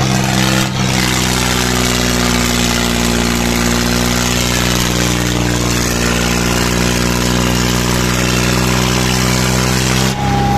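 Eicher 5660 tractor's diesel engine running loud and steady at an unchanging engine speed while the tractor strains in a tug-of-war pull.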